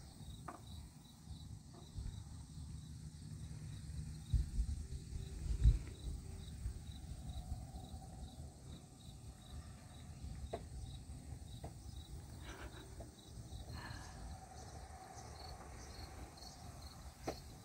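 Outdoor insects chirping steadily, faint, about two chirps a second. Two low thumps come near the middle, and a few faint clicks follow later.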